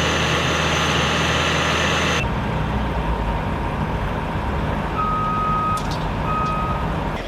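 Heavy construction vehicle running, with a change in the engine sound about two seconds in; its reversing alarm then beeps twice, each beep just under a second long.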